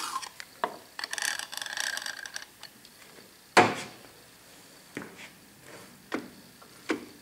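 Eagle oil can squirting oil onto a lathe's cross-slide screw, a squeaky hiss lasting about a second and a half. It is followed by one sharp metal clunk and then a few lighter clicks as the cast-iron slide parts are handled.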